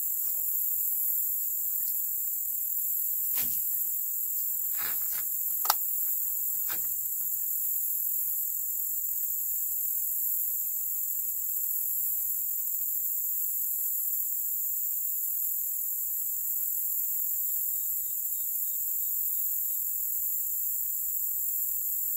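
Steady high-pitched insect chorus, with a few sharp clicks in the first seven seconds, the sharpest about six seconds in.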